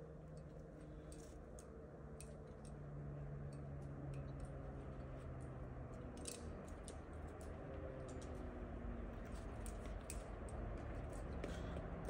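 Faint, irregular small clicks and ticks scattered over a low, steady background hum.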